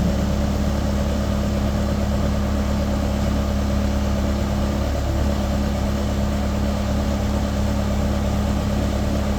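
Bobcat A300 skid steer's diesel engine running steadily at a constant speed, with a brief dip in its tone about halfway through.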